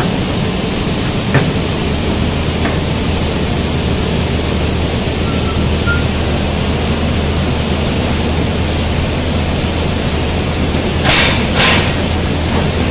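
Excavator diesel engines running steadily at close range, a broad even noise over a low hum. Two short, loud bursts of noise about half a second apart come near the end.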